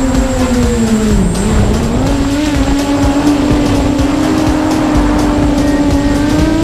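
Racing quadcopter's Emax 2204 brushless motors and propellers whining steadily. The pitch dips about a second in and climbs back as the throttle changes. Background music underneath.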